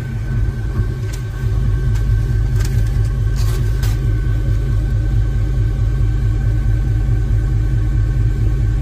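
Car-audio subwoofers driven by Taramps Smart 8K amplifiers playing a 25 Hz test tone at full power during an SPL burp: a loud, steady deep rumble with a fast fluttering buzz, swelling about a second in.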